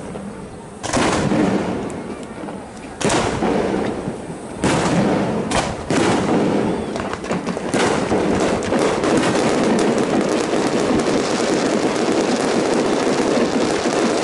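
Fireworks display: aerial shells bursting with sharp bangs a second or two apart, then from about eight seconds in a dense, continuous crackling of many small reports.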